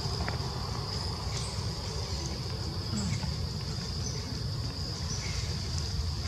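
A steady, high-pitched drone of insects over a low rumble, with a few faint, short chirps.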